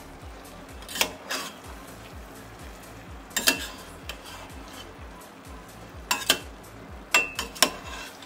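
Metal slotted spoon stirring chicken pieces in a thick pepper masala in a pan, knocking against the pan in several sharp clinks, over a light steady sizzle.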